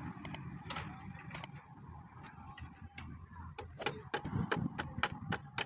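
Hammer striking nails into bamboo poles: sharp taps, a few in the first second and a half, then a quicker run of about nine in the last two seconds. A thin, steady high tone sounds for nearly two seconds midway.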